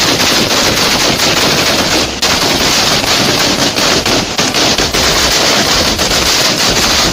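A string of firecrackers going off in a rapid, unbroken chain of sharp bangs, with a brief break about two seconds in.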